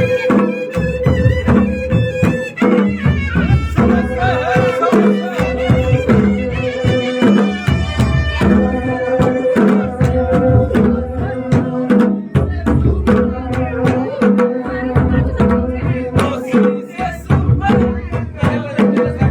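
Pahari Nati folk music: drums play a repeating pattern under a sustained melody line.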